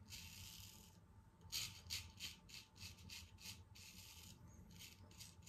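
Faint rasping strokes of a 6/8 full hollow Damascus steel straight razor cutting short one-day stubble through shaving lather, a run of short scrapes about two to three a second, starting about a second and a half in.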